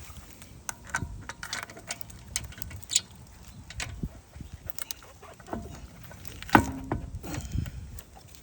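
Irregular metallic clicks and knocks from hand work on wheel hardware, with the loudest clank, briefly ringing, about six and a half seconds in. No impact wrench is running.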